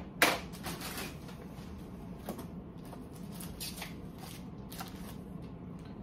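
Hard plastic comic grading slabs being handled: one sharp clack about a quarter-second in, then scattered light clicks and plastic rustling.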